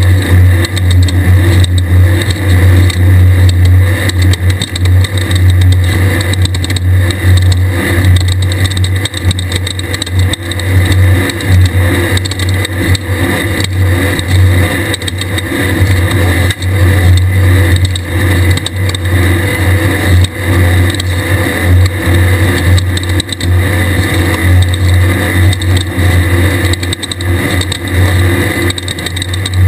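Air-cooled 1600cc VW flat-four engine of a Class 1600 desert race buggy running hard at racing speed, its note swelling and dipping as the throttle is worked. Rattles and knocks come from the chassis over rough ground.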